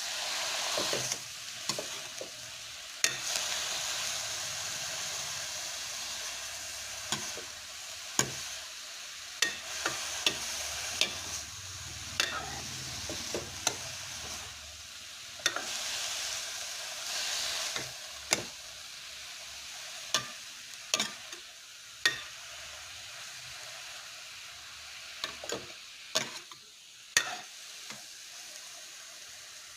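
Leafy greens (saag) frying and sizzling in a pan while being stirred, a utensil clacking against the pan at irregular moments. The sizzle dies down near the end.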